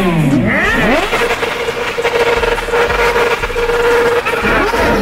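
Several sport motorcycle engines revved with the throttle blipped, the pitch sweeping up and down. About a second and a half in, one engine is held at steady high revs for nearly three seconds, then quick revs resume near the end.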